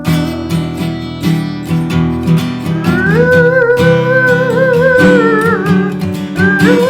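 Acoustic guitar strumming chords, with a voice imitating an erhu by mouth: a bright, wavering melody that slides up into its note about three seconds in, holds with vibrato, drops away, then comes back just before the end.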